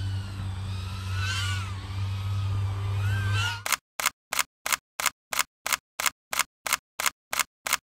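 A steady low hum with a few high chirps over it, which cuts off suddenly about four seconds in. Then comes a quick run of camera-shutter clicks, about three a second, as an intro sound effect.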